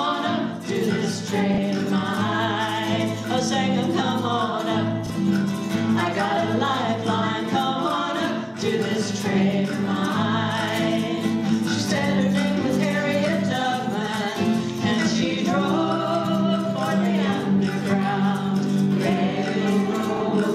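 Women's voices singing together over strummed acoustic guitars, a live folk performance.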